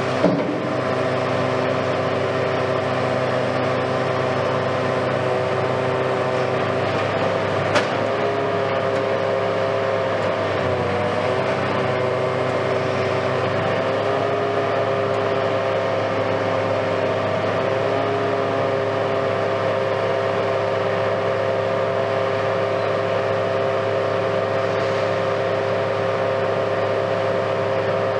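Hitachi Kiesel KMC520 high-reach demolition excavator's diesel engine and hydraulics running steadily under load, the engine pitch dipping briefly about eleven seconds in. A single sharp knock about eight seconds in.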